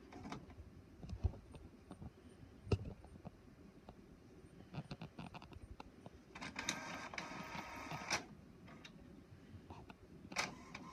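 Inkjet printer's mechanism whirring for about two seconds near the middle, with scattered faint clicks and ticks before and after.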